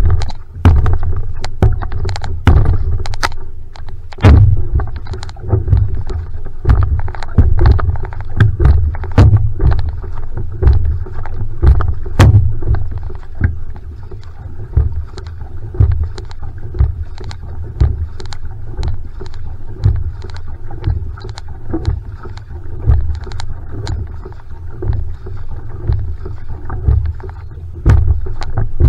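Single-blade paddle strokes driving a one-person outrigger canoe (va'a) at a steady pace, about one stroke a second. Each stroke brings a splash of water and a low thump through the hull, with sharp clicks of spray in between.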